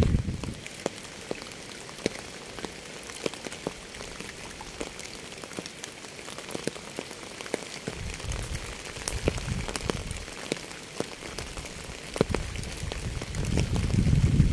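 Steady rain, a constant hiss with many individual drops ticking sharply on a surface. A low rumble swells in about eight seconds in and again near the end.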